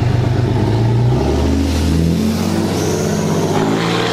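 Lifted Cummins turbo-diesel pickup towing a camper trailer drives past under load, the engine note shifting in pitch several times as it accelerates.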